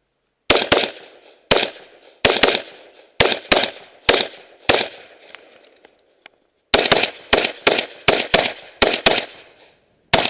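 Next Generation Arms X7 AR-15 rifle firing rapidly, mostly in quick pairs of shots, about nineteen in all. Each shot is a sharp crack with a short echo. There is a pause of about two seconds midway before the string resumes.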